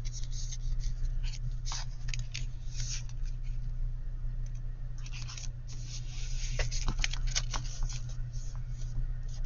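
Paper pieces being folded over and slid into place by hand: irregular rustling, scraping and crinkling, busiest a little past the middle, over a steady low hum.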